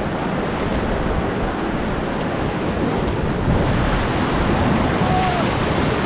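Rushing white-water rapids around an inflatable raft, with wind buffeting the microphone. The water grows louder and hissier about three and a half seconds in as the raft runs into rougher water.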